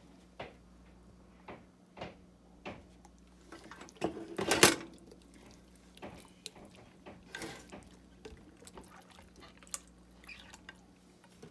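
Hands rubbing butter spread over a raw whole chicken in a glass baking dish: scattered soft, wet squishing and slapping of skin, with one louder burst about four seconds in.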